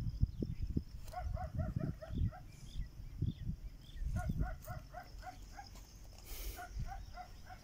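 An animal calling in rapid runs of short, pitched calls, about four a second, three runs in all, over scattered low thumps and rumble.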